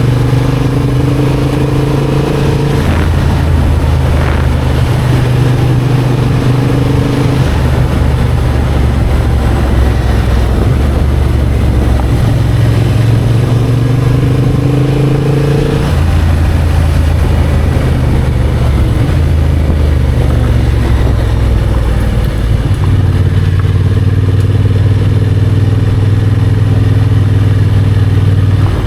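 Motorcycle engine running steadily while riding, its pitch stepping up and down several times as the engine speed changes.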